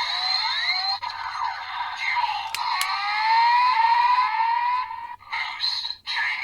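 Kamen Rider Geats DX Desire Driver toy belt playing its electronic raise-buckle sound effects. Layered synth tones sweep upward again and again, then break into short choppy bursts about five seconds in.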